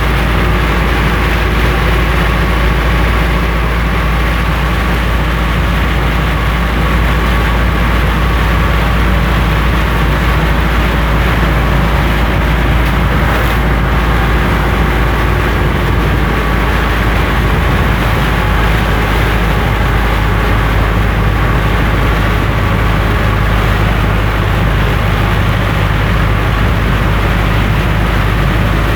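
A vehicle engine running steadily, a constant low rumble with a steady hum and no change in speed.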